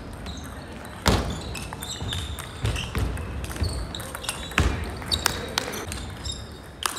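Table tennis balls clicking sharply and irregularly off bats and tables during rallies, with a couple of heavier thuds about one and four and a half seconds in and short high squeaks.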